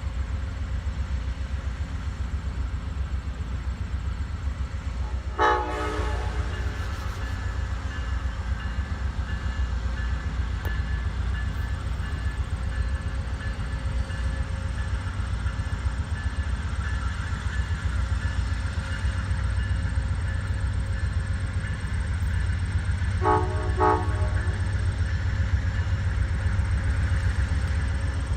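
Amtrak train's locomotive running with a steady low rumble, with short horn toots: one about five seconds in, two quick ones near the end, and another just at the close.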